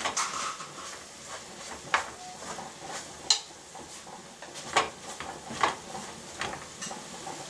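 A spoon stirring ground meat in a metal pot, with about six sharp knocks and scrapes of the spoon against the pot spread through the stirring.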